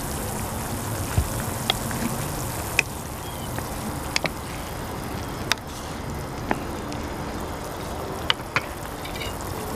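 A pot of soup broth at a boil on a gas stove: a steady bubbling hiss with scattered sharp clicks.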